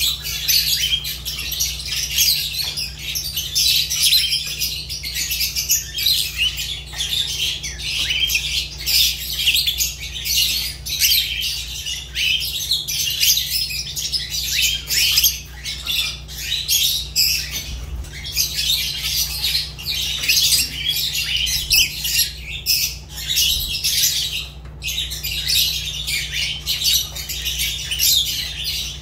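Fischer's lovebirds chattering: a dense, unbroken stream of rapid, shrill chirps and squawks, with a steady low hum underneath.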